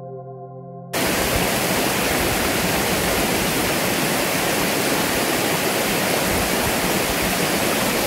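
Background music with held tones cuts off about a second in. Then the steady rush of water flowing over the rocks of a shallow stream takes over.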